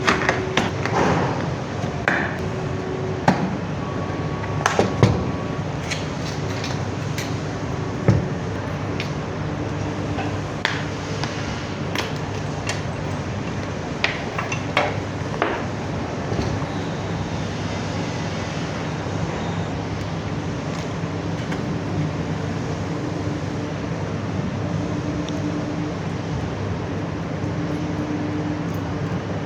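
Scattered light clicks and knocks of small hard parts being handled, most of them in the first half, over a steady background hum.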